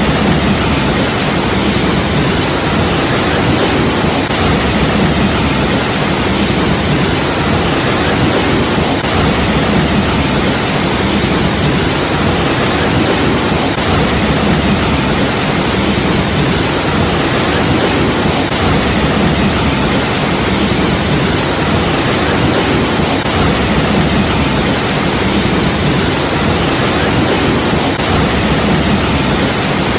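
Waterfall: falling water rushing in a steady, even roar with no breaks.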